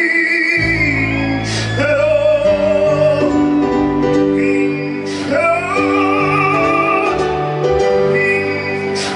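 Live band music with a man singing long, wavering held notes into the microphone. A low bass part comes in about half a second in.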